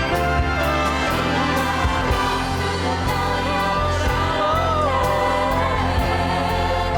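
Church choir singing with orchestral accompaniment over sustained bass notes and a steady beat.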